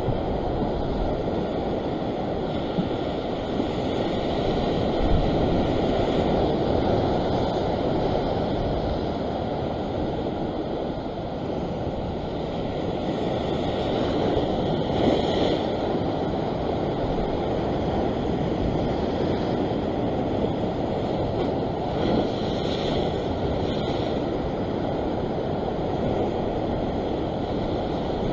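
Sea swell washing over a rock ledge: a steady rush of surf that swells louder several times as waves come in.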